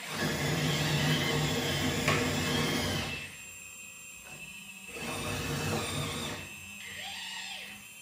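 Hydraulic pump and valves of a Kabolite 970 RC hydraulic excavator whirring under load as the boom and arm move. It runs hard for about three seconds, eases off, then rises again twice as the next movements are made.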